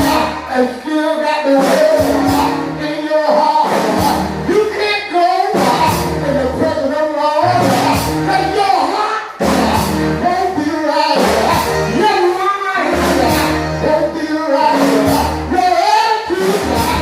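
Live gospel praise music: voices singing over a band, with a steady beat and a sustained bass line, in a large hall.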